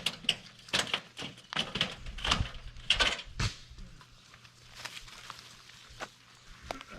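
Goats moving about, making a quick, irregular run of clicks and knocks. These are busiest over the first three and a half seconds, then thin out to a few single knocks.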